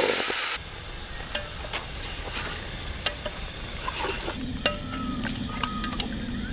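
Marinated chicken sizzling loudly in hot oil in an aluminium pot, cutting off suddenly about half a second in. Then a spatula stirring the chicken, with irregular scrapes and clinks against the pot over a quieter sizzle.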